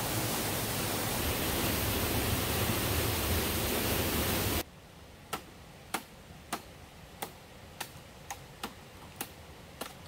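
Steady rushing roar of a large waterfall that cuts off abruptly about halfway through. Against a quiet background come nine sharp knocks at slightly uneven spacing, roughly every half second.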